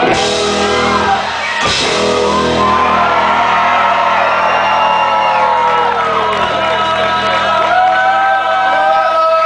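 Live band music played loudly, with shouted vocals over sustained instrument tones and a couple of sudden crashes in the first two seconds.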